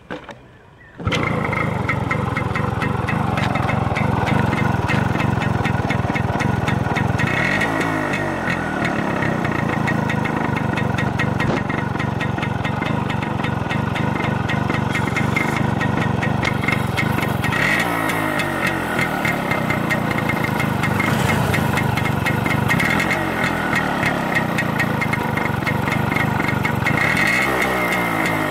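Yamaha RX100's two-stroke single-cylinder engine starting about a second in, then idling steadily, with the throttle blipped up and back down several times.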